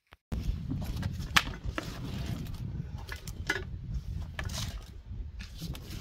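Low rumble of wind on the microphone, with a few scattered light clicks and rustles.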